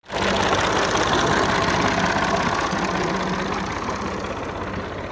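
Diesel farm tractor engine running steadily with an even firing pulse, gradually growing fainter.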